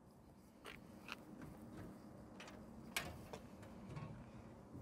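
A few faint clicks and light rattles of the latches on the metal battery box being undone, with one sharper click about three seconds in.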